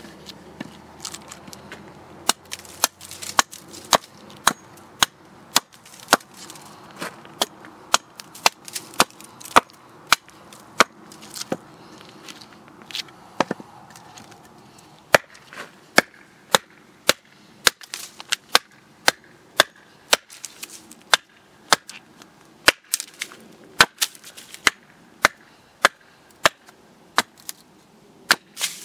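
Hand-forged carving axe chopping a wooden spoon blank held on a chopping block: a steady series of sharp strikes, about one or two a second, as chips are split off.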